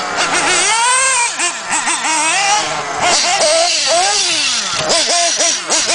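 Small nitro engines of radio-controlled off-road buggies running at high pitch, revving up and down in quick rises and falls, with more than one car's engine overlapping.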